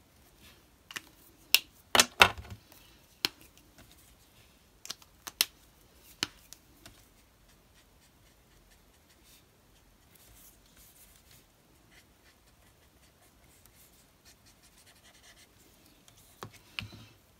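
Sharp clicks of Ohuhu alcohol marker caps being pulled off and snapped back on: a cluster in the first six seconds and a few more near the end. In between, faint scratching of a marker nib colouring small pieces of card.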